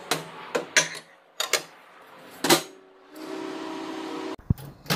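A plate knocking and clattering as a pizza goes into a microwave oven, with a few sharp knocks and the door shutting with a loud clack about two and a half seconds in. The microwave then runs with a steady hum, which cuts off near the end.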